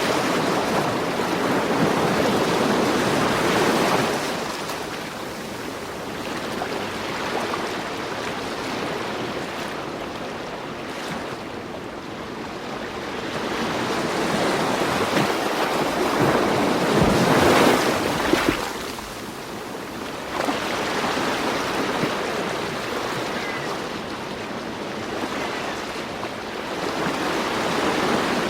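Ocean waves washing on a shore, a steady rush that swells and falls back: loud at the start, a big surge about two-thirds of the way in, then building again near the end.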